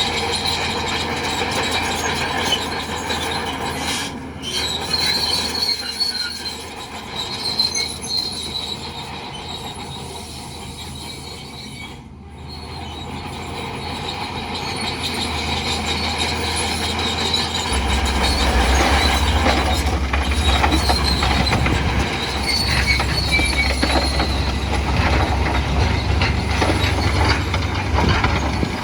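Crawler bulldozer working, its steel tracks squealing and clanking over a low diesel engine drone. It dips a little under halfway through, then grows louder with a heavier rumble.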